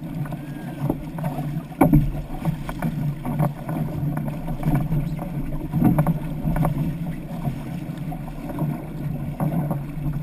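Outrigger canoe running through the water under paddle power: a steady low rush of water along the hull, broken by repeated splashes and knocks of paddle blades catching the water. The loudest is about two seconds in, with another strong one near six seconds.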